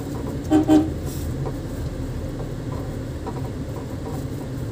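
Vehicle horn giving two short toots in quick succession about half a second in, over the steady low rumble of a running vehicle.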